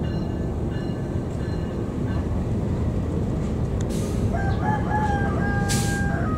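Diesel-electric locomotive rumbling steadily as it creeps along the track toward the listener. A rooster crows for about two seconds starting about four seconds in, and there is a short hiss near the end.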